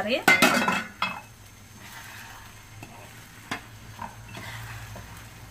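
A steel pot lid clattering as it is handled and set down in the first second, then a spoon stirring thick cooked semolina in a steel pan, with a few light knocks of the spoon against the pan.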